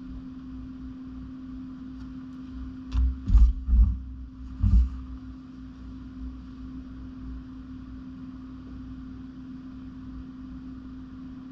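A steady low hum, with four dull low thumps close together about three to five seconds in.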